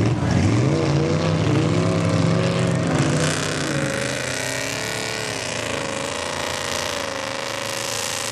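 Dodge mega mud truck's engine revving hard as its big tires churn through a deep mud hole, with mud and water splashing. The pitch swings up and down for the first few seconds, then settles into a steadier, somewhat quieter drone.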